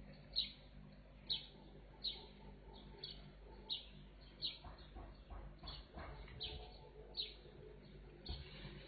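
A small bird chirping repeatedly, one short falling chirp about every three quarters of a second, over a low steady hum, with a few faint knocks in the middle and a soft thump near the end.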